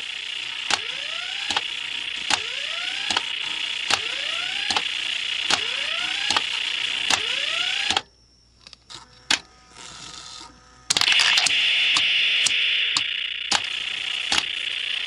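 Retro Nishijin Red Lions wing-type pachinko machine in play: sharp clicks about every 0.8 s, each followed by a short rising electronic tone, over a steady hiss. About eight seconds in the sound drops almost to nothing for some three seconds, then comes back louder before the regular clicks resume.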